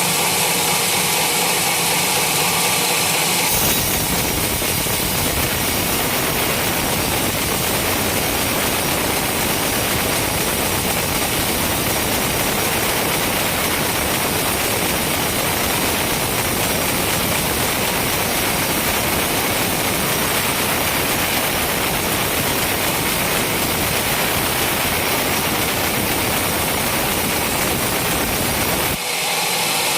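Homemade sawmill running, then sawing through an old coconut palm trunk: a few seconds in the steady machine tone gives way to a dense, even cutting noise, which stops about a second before the end as the machine runs on free.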